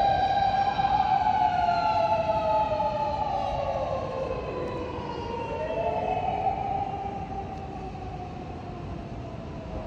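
Emergency vehicle sirens wailing, more than one at once: each tone rises over a second or so, holds, then slides slowly down, the wails overlapping out of step.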